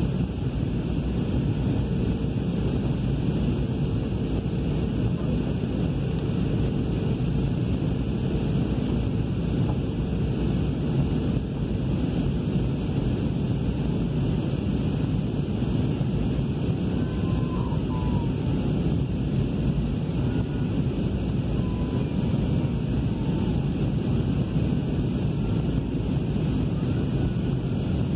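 Steady low rumble of a jet airliner's engines and rushing air, heard from inside the passenger cabin.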